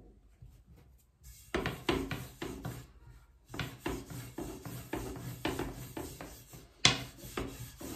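Long thin wooden rolling pin rolling dough out on a floured worktop: repeated back-and-forth rubbing strokes that start about a second and a half in, pause briefly around three and a half seconds, then go on. A single sharp knock comes near seven seconds.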